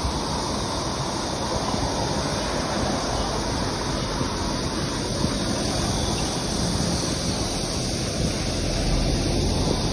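Steady rush of wind over the microphone with the rolling rumble of a moving bicycle, heaviest in the low end and without pause.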